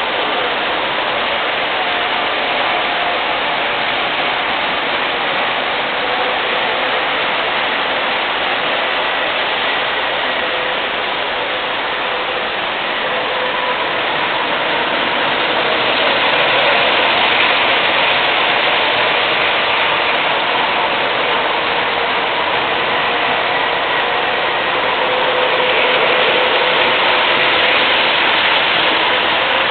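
Several MTH O-gauge model trains running on their tracks: a steady rolling rumble of wheels and motors with faint whining tones. It grows louder about halfway through and again near the end, as trains pass close by.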